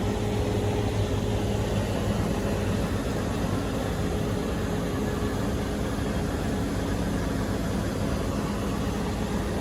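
Combine harvester's diesel engine running steadily with a low, even hum.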